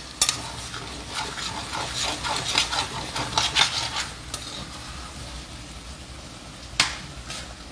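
A spatula stirs and scrapes through a wet jackfruit curry in a frying pan over a low sizzle. There is a quick series of scraping strokes over the first four seconds, then a quieter stretch, and one sharp knock near the end.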